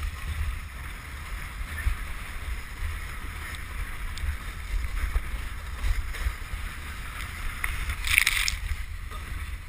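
Wooden krňačka sledge sliding down a packed-snow track: a steady hiss of the runners on snow with wind rumbling on the helmet camera, and a brief louder scrape of snow near the end.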